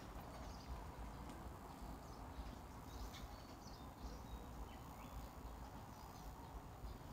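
Quiet outdoor background during a pause: a steady low rumble with a few faint, short high chirps here and there.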